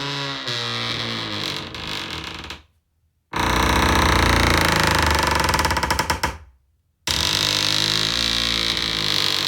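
Old wooden ship's boards and timbers creaking: three long, groaning creaks with a fast rattling grain and wavering pitch, each cut off by a brief silence.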